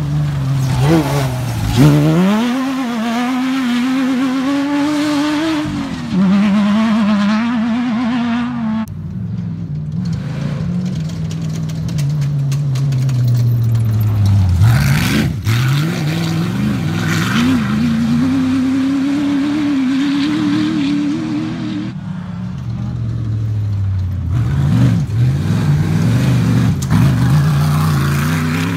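Off-road racing buggy engines revving hard through a dirt corner, the pitch climbing and dropping again and again as each car powers out. The sound changes abruptly several times.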